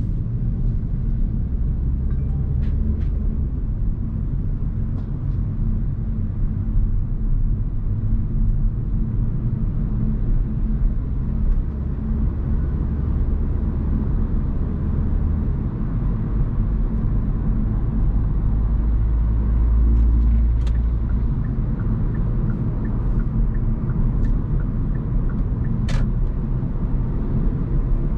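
Hyundai Kona Hybrid driving on the road: a steady low road and tyre rumble that swells briefly about two-thirds of the way through, with a few faint ticks.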